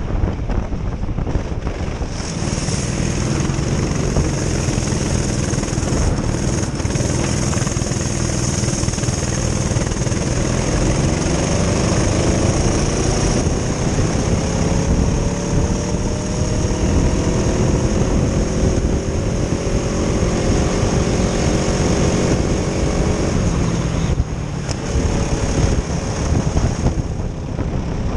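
Twin Honda engines of a Prokart racing kart running hard under load, heard onboard with wind buffeting the microphone. About halfway through, the revs climb steadily for several seconds along a straight, then fall away a few seconds from the end as the kart slows for a corner.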